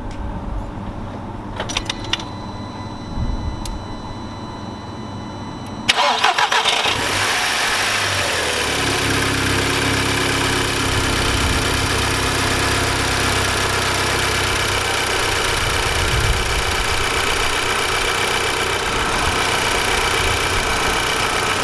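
Audi TT Mk2's 2.0 TFSI (EA113 BWA) four-cylinder engine started about six seconds in, after a few clicks: a short crank and a flare of revs, then settling into a steady idle on freshly fitted spark plugs and coil packs.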